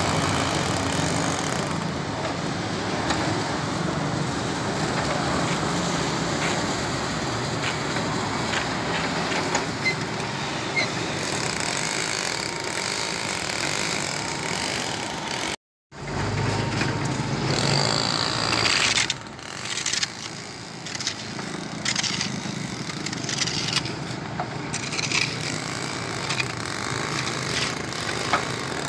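Portable drum concrete mixer running, the wet mix churning in its turning drum. The sound drops out briefly about halfway through; after that, shovels scrape and knock in sand and gravel over the running mixer.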